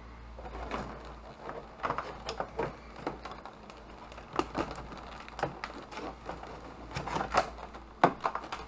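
Clear plastic blister tray and plastic bag from a figure's packaging being handled, crinkling and clicking irregularly, with a sharper click near the end.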